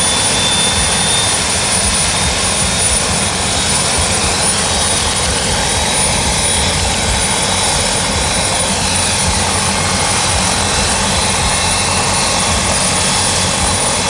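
Sheriff's turbine helicopter running close by: a loud, steady rush of rotor and engine noise with rapid low pulsing and a steady high whine.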